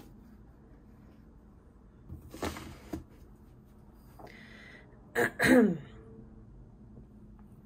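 A person clearing the throat: a short breathy rasp about two seconds in, then a louder, harsher clearing just past five seconds whose pitch falls.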